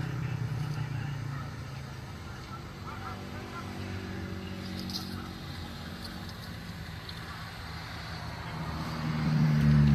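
An engine running steadily with a low, even hum, growing louder near the end.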